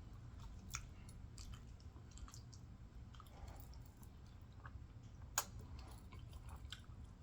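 A person chewing food close to the microphone, with soft wet mouth clicks and one sharper click about five seconds in.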